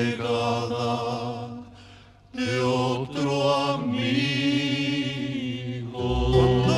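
Vocal music: voices singing long held notes with vibrato, with a short break about two seconds in.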